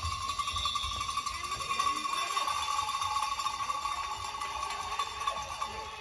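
A steady high ringing tone with overtones that fades near the end, over brief squeaks from players' shoes on a sports-hall floor.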